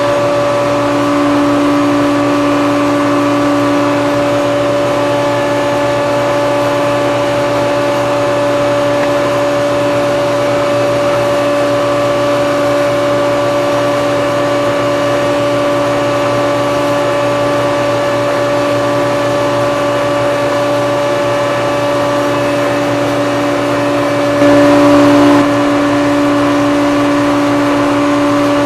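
Router in a table saw/router combination spinning a vertical raised panel bit, running steadily at full speed while panels are cut, with a short louder stretch near the end.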